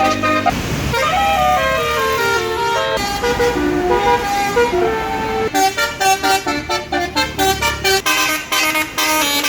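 Bus basuri musical air horn (telolet) playing a tune. Held notes step up and down for the first half, then a fast run of short staccato notes follows, over a low rumble.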